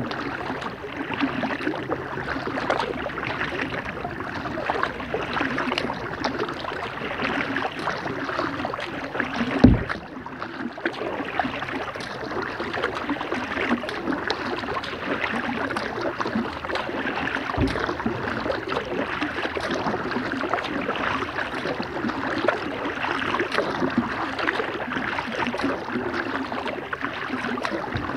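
Kayak paddle strokes on calm river water: a steady stream of small splashes and drips as the blades dip and lift. One sharp, loud knock about ten seconds in and a softer one later.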